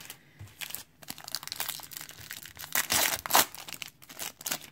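Wrapper of a 1991 Pro Set football card pack crinkling and tearing as it is ripped open by hand, in a run of irregular rustling bursts, loudest about three seconds in.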